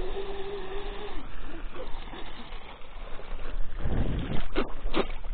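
Twin electric motors of a Minicat 820 EP RC catamaran whining at a steady pitch, the whine dropping away about a second in. Water noise follows, with a few sharp splashes near the end.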